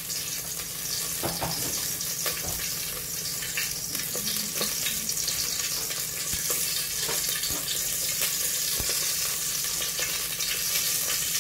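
Cooking oil heating in an aluminium pot on a gas burner, sizzling steadily with scattered small crackles and pops.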